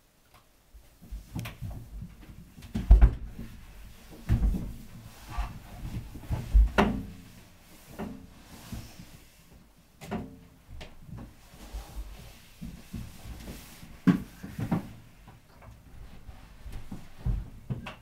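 Irregular knocks, thumps and rattling of things being handled, like drawers or cupboard doors opened and shut, starting about a second in, with the loudest thuds a few seconds in.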